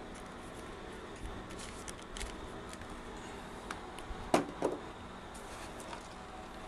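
Faint rustling and light taps of foil trading card packs being handled and set down, with one sharper crinkle or knock about four and a half seconds in.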